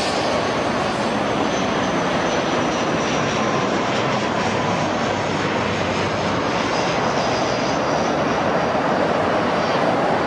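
Jet aircraft engines running at a distance: a steady roar with a faint high whine above it.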